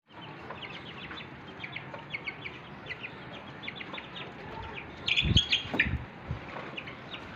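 Aseel chicks peeping in a steady run of short high calls, with a hen flapping her wings and landing with a few thuds about five seconds in.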